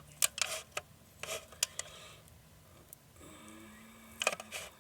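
Sharp clicks and short scrapes of chicken pieces being pushed off a kebab skewer into a foil-lined roaster, several in the first two seconds and a quick cluster near the end.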